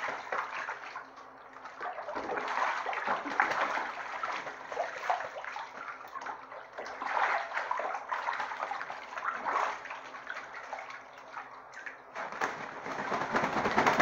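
Bathtub water sloshing and splashing as a Canada goose bathes, dipping and beating its wet wings in the water. The splashing comes in surges a second or two long with quieter moments between them.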